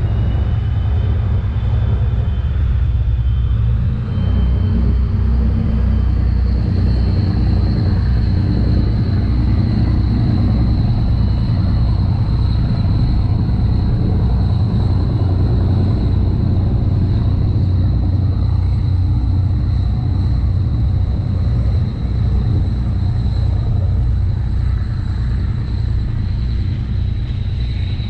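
Steady, loud low engine rumble from the tender-boat and ship machinery, with a thin high-pitched whine held above it.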